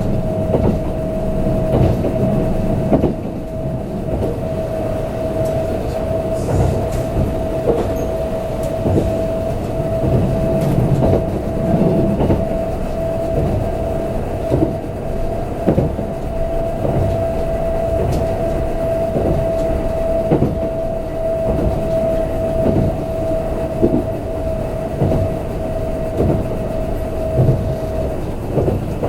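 Kintetsu limited express train running, heard from inside the passenger car: a steady rumble of the running gear with repeated clacks over the rail joints. A steady high tone rides above it and stops near the end.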